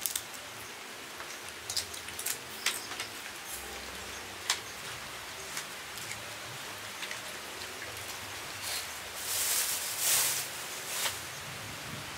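Rustling and crinkling of food wrapping with scattered small clicks as grilled food is picked apart by hand, over a steady outdoor hiss; a few louder crinkling bursts come about nine to eleven seconds in.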